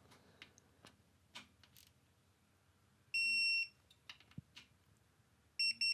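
A few faint clicks, then the electronic beeper of a digital torque wrench: one steady high beep of about half a second, and near the end a run of short quick beeps, the signal that the tensioner bolt has reached its set torque of 6.4 newton meters.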